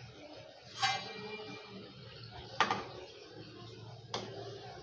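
Kadakni deep-frying in hot oil in a kadhai with a steady sizzle. A steel slotted skimmer (jhara) knocks against the pan three times: about a second in, halfway through and near the end. The first knock rings briefly.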